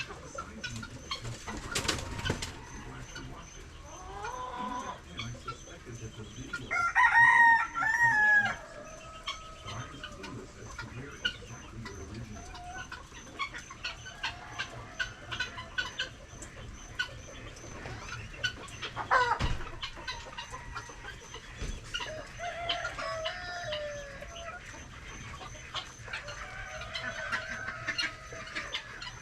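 Chickens clucking and calling, with a rooster crowing loudly about seven seconds in. A knock about two seconds in and scattered light clicks.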